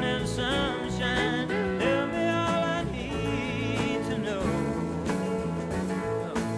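Background music in a country style: guitar accompaniment under a melody line with vibrato.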